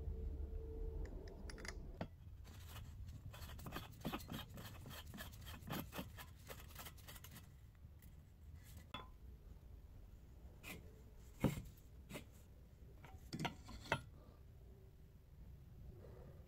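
Brass and copper parts of a kerosene pressure stove being fitted and screwed together by hand. First a quick run of light metal clicks and scrapes, then a few separate sharp clinks.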